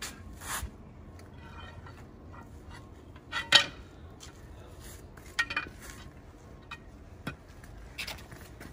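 Scattered metal clinks and knocks as a heavy steel disc and the steel bar through its hub are shifted and levered on a wooden board; one sharp knock about three and a half seconds in is much the loudest.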